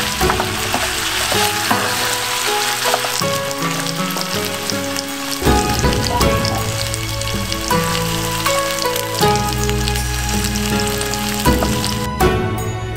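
Shrimp frying in sauce in a pan, a steady sizzle with a few clicks as they are stirred; the sizzle stops near the end. Soft background music plays alongside.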